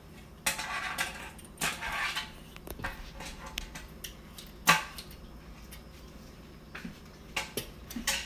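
Vegetable peeler scraping along the skin of a zucchini in two strokes in the first couple of seconds, then a sharp click a few seconds later and light clicks near the end.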